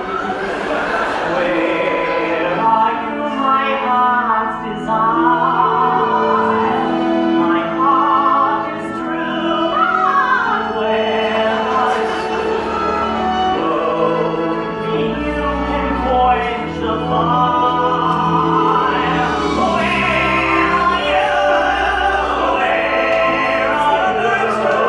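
A solo singer performing a slow, operatic-style musical-theatre ballad with long held notes over instrumental accompaniment, with deep bass notes joining from about halfway through.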